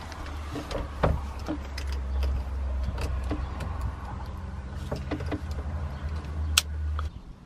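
Water from a hose filling a van's plastic fresh-water tank: a steady low hum that cuts off about seven seconds in, with scattered clicks and knocks as the hose end is handled at the tank.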